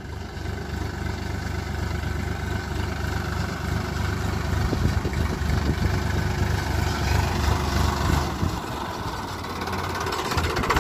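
Farm tractor's diesel engine running as it tows a loaded trailer, growing louder over the first few seconds as it comes closer.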